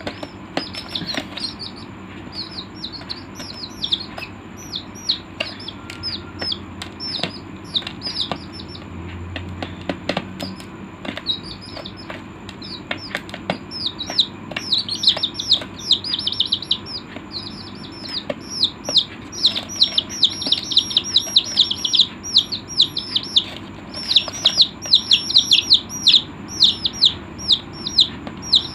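A group of young chicks peeping continuously: many short, high, falling peeps overlapping one another, growing denser and louder in the second half.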